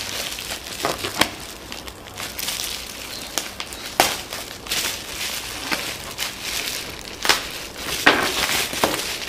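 Plastic bubble wrap crinkling and rustling as hands unwrap a package, with several sharp crackles along the way, the loudest about four seconds in and again near the end.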